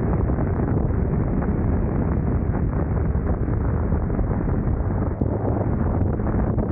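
Steady wind rush on the microphone of a moving motorcycle, with the BMW K1600 GTL's inline six-cylinder engine running underneath.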